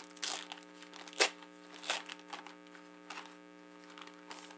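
Plastic sleeve crinkling and rustling in irregular bursts, with one sharp crinkle about a second in, as a handheld device is worked out of it. A steady electrical hum runs underneath.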